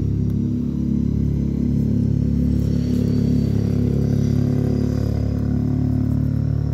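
A motor engine running steadily with an even hum, nearby and loud.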